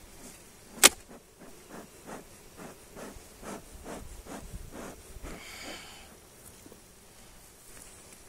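A sharp crack as the wooden hive super is broken free of the box below, then a run of soft puffs about two a second from the bee smoker's bellows, with a brief buzz of bees in the middle.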